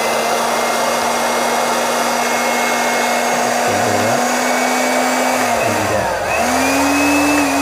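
Philips HR2115 blender's newly replaced motor running with no jar or load, a steady high whine on its final test run. A little under six seconds in it winds down and stops for a moment, then starts again at a higher pitch.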